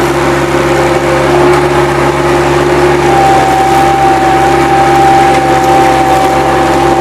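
Bobcat 763 skid-steer loader's diesel engine running steadily, with a steady whine over it that moves to a higher pitch about three seconds in.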